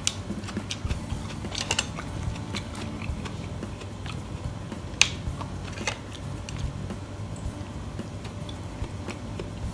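Close-up eating sounds of a boiled egg being bitten and chewed: soft mouth clicks and smacks, with a sharper click about five seconds in, over a low steady hum.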